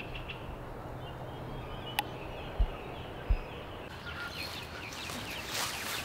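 Builder's plastic sheeting rustling and crinkling as it is handled and pulled back from a low poly-pipe hoop cover, building up over the last couple of seconds, after a sharp click and two dull thumps about two to three seconds in. Faint bird chirps sound in the background.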